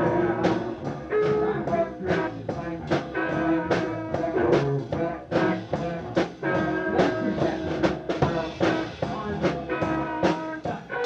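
Live band playing a song: a drum kit keeps a steady beat of about two hits a second under guitar and held melodic notes.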